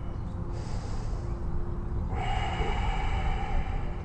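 A person breathing deeply and audibly while holding a yoga stretch: a short breath about half a second in, then a longer one from about two seconds in.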